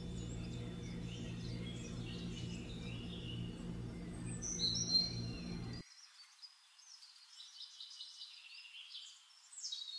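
Bird-like chirps over a steady low hum. The hum cuts off suddenly about six seconds in, leaving only the high chirps.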